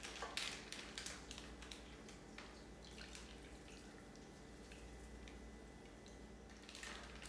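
Faint pouring of a liquid marinade from a stainless steel mixing bowl into a plastic zip-top bag of chicken: light trickling and dripping with a few small clicks.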